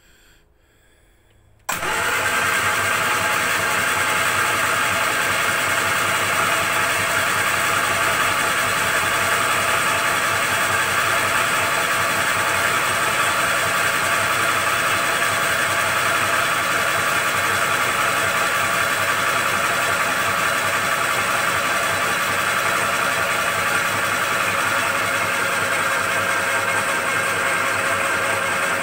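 Starter motor of a Morris Minor Traveller cranking its A-series engine without it firing, to build oil pressure before the first start. It cuts in suddenly about two seconds in and then runs steadily on.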